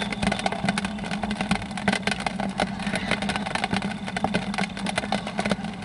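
Rain falling in dense, irregular taps of drops over a steady low hum.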